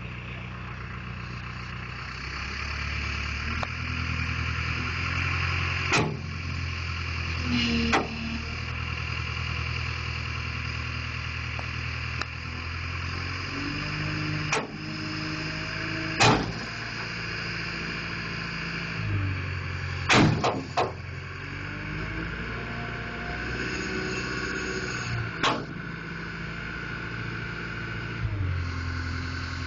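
Caterpillar wheel loader's diesel engine running and revving up and down under load as it works to move an old truck that has sat stuck for decades, with several sharp metallic knocks along the way.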